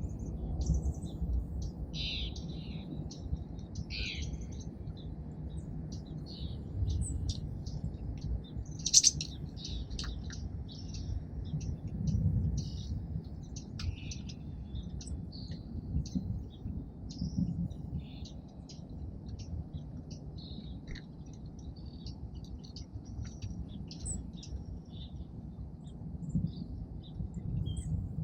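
Small wild songbirds at a feeder chirping and calling, with many short chirps coming irregularly and one sharper, louder chirp about nine seconds in. A steady low background rumble runs underneath.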